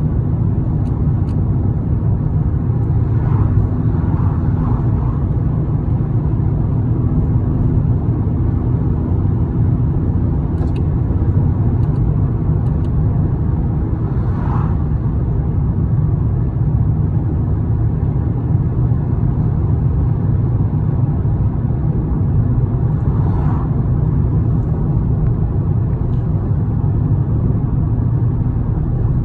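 Steady low rumble of a moving vehicle, with a few faint brief sounds over it about three seconds in, in the middle and near the end.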